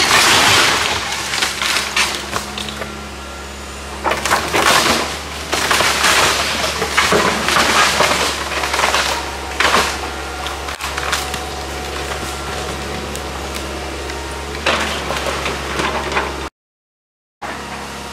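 Hydraulic excavator tearing apart a wood-frame house: wood cracking and splintering and debris crashing down in repeated bursts, over the steady running of the excavator's engine.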